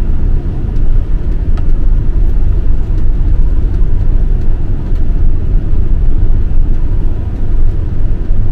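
Steady low engine and road rumble inside the cab of a moving motorhome.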